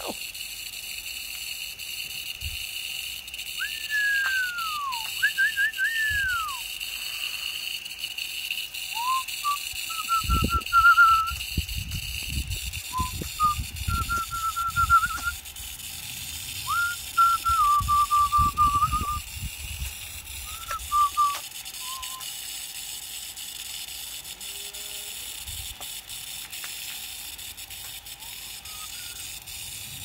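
Whistling over a steady hiss of falling water spray: first a few falling whistled glides, then from about ten seconds in a run of short trilled, warbling whistle phrases, with one faint whistle near the end. Bursts of low rumble come between the whistles in the middle stretch.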